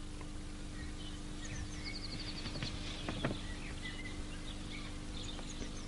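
Outdoor ambience of small birds chirping, with a short rapid high trill about two seconds in and a soft tap about three seconds in, over a steady low hum.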